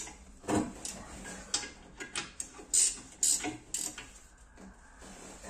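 Metal spanner turning bolts on a drill press base as they are tightened: irregular sharp metal clicks and clinks.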